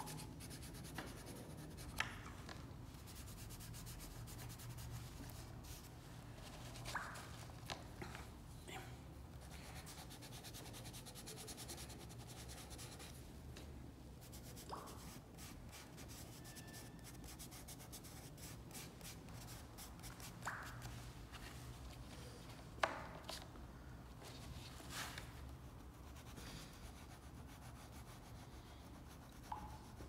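Dry pastel sticks rubbing and scratching across drawing paper in many short, faint strokes, with a few sharper taps, the loudest about two-thirds of the way through. A low steady hum runs underneath.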